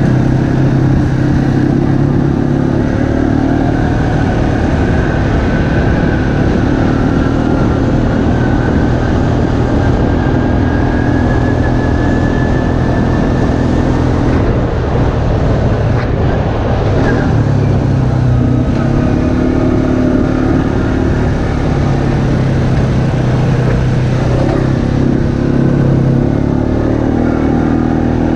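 Off-road vehicle's engine running steadily while driving along a dirt trail, with a higher whine that slowly rises and falls. About halfway through, the engine note eases briefly amid a few bumps and rattles, then picks up again.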